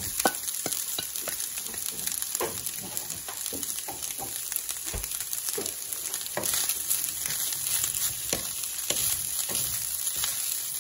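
Basmati fried rice sizzling steadily in a nonstick pan as cooked rice is tipped in over frying shrimp, chorizo and vegetables. Frequent short clicks and scrapes of the serving spoon and wooden spatula on the pan run through it.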